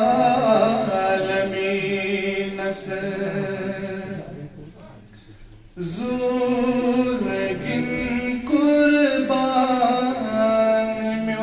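A man's voice chanting verses in a slow, melodic way over a microphone and PA, with long held notes in two long phrases and a short pause about five seconds in.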